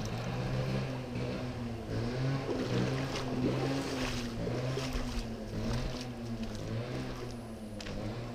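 A steady low engine hum, with irregular splashing and crunching of steps through a shallow, stony stream.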